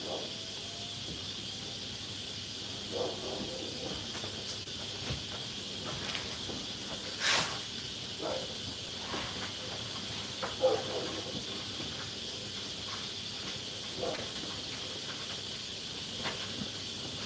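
Steady high hiss of pressure venting from a still-pressurised vessel, with a few faint, brief knocks and murmurs over it.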